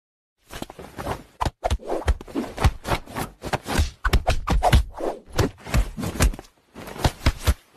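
Close, irregular rubbing, scraping and thumping as a hand pats and strokes a cat's fur, with many quick knocks and rustles.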